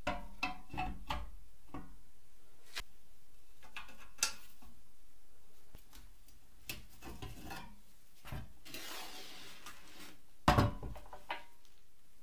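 Small metal parts of a filmoscope projector being handled and fitted during reassembly: scattered clicks and taps, a short scraping hiss about nine seconds in, and one loud knock a little later.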